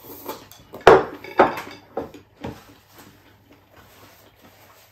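A plate and chopsticks set down on a wooden table: two loud knocks about a second in, two smaller ones soon after, then soft clinks and handling sounds.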